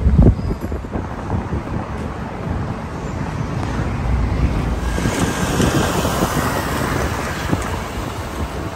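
Road traffic noise on a city street, a steady wash of passing vehicles that swells louder about five seconds in, with wind rumbling on the microphone.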